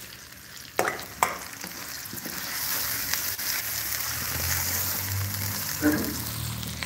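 Chopped onions sizzling in hot oil in a steel kadai while a spatula stirs them, with a couple of sharp scrapes or knocks against the pan about a second in. The onions are being lightly browned.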